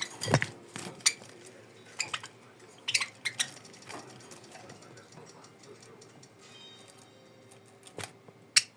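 Budgerigars in a cage: scattered sharp clicks and short chirps in the first few seconds, a faint thin warble in the middle, and two more sharp clicks near the end.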